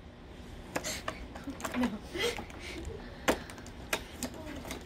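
A cardboard advent calendar door being pushed and pried open with fingers: a few separate sharp clicks and taps of cardboard.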